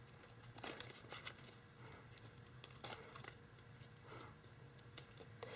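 Faint, scattered crinkles and small taps of tissue foil (kitchen foil laminated with tissue paper) being folded and pressed flat between the fingers.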